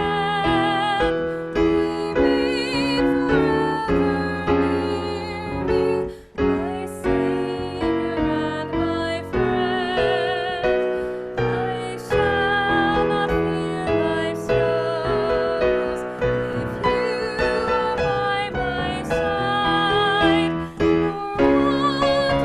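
A song with piano accompaniment and a singer holding notes with a marked vibrato, with one brief break about six seconds in.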